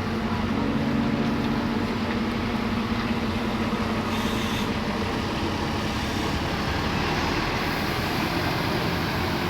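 A bus's diesel engine running, with a low hum that eases off after about two seconds, over steady vehicle noise. There is a brief hiss about four seconds in and another near the end.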